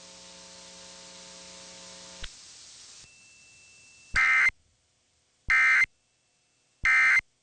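A faint steady hum cuts off with a click about two seconds in. Then come three short, shrill bursts of data tones about a second and a quarter apart: the Emergency Alert System end-of-message signal that closes the test.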